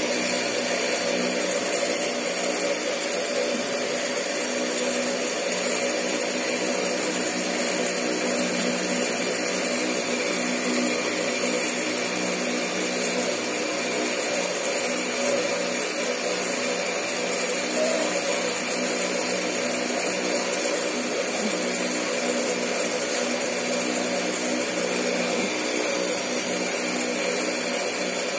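Steady electric motor hum with a broad hiss, running without a break.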